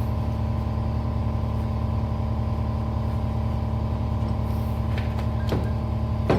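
Shop air compressor running steadily with an even hum. A couple of light knocks come near the end.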